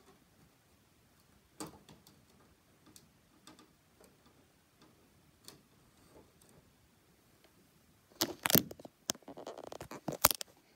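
Handling noise from the filming tablet. Faint scattered clicks come first, then, near the end, a burst of loud knocks and a short rattle as the tablet is picked up and turned back towards the Lego build.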